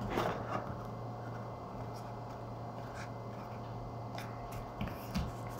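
Faint handling sounds of a phone box being opened: the lid rubbing and sliding off, with a few light taps, over a steady low hum.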